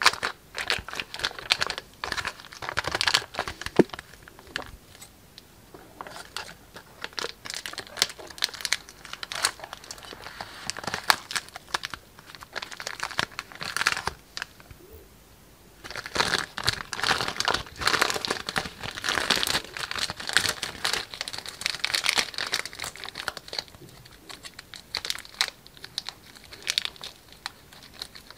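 Thin plastic piping bag packed with tiny polystyrene foam beads, squeezed and worked by hand and then pulled away from the packed beads: crinkling plastic and crackly rustle of the beads. It comes in bursts with brief pauses.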